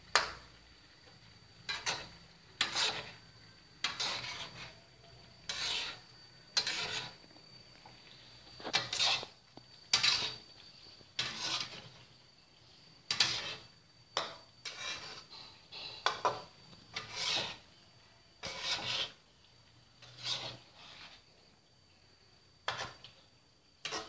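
Slotted metal spatula scraping and turning pineapple and beef around a wok in short strokes, roughly one a second, some in quick pairs.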